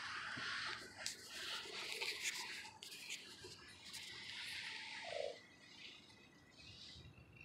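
Hissy rustling with scattered clicks for about five seconds, then a short, soft cat mew falling in pitch.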